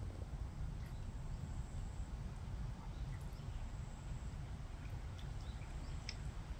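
Outdoor ambience: a steady low rumble with a few faint, scattered high chirps and ticks.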